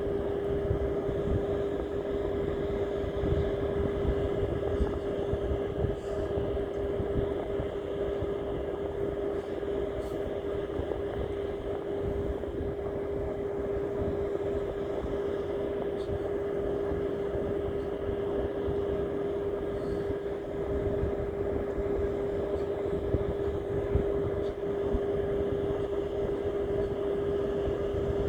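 A motor or engine running steadily at one constant pitch, with a rumbling noise underneath.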